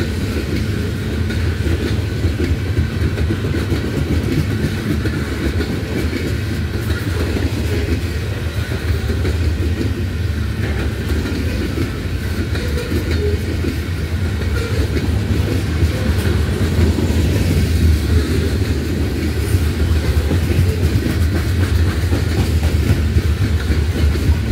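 Freight train cars, mostly boxcars and covered hoppers, rolling past close by: a steady heavy rumble of steel wheels on rail that grows a little louder in the second half.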